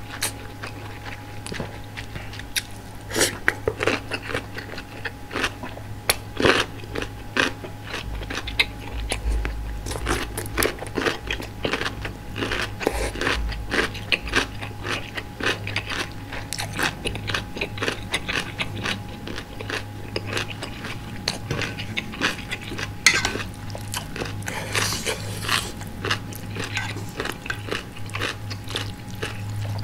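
Close-miked eating sounds: a person chewing spicy ramen noodles and soft tofu, with many wet mouth clicks and smacks.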